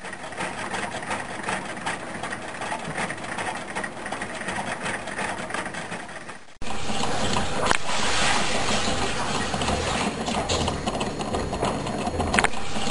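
Two home-built Meccano Stirling engines, each with a graphite piston in a glass cylinder, running one after the other. First comes a quiet, rapid ticking and rattling. About six and a half seconds in, a louder, busier mechanical clatter from the second engine takes over, with a few sharper clicks.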